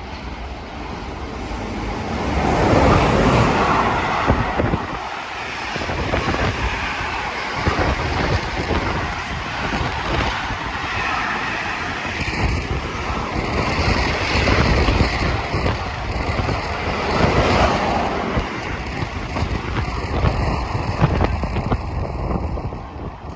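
A train passing by, a loud rushing noise that swells and eases several times, with wind buffeting the microphone.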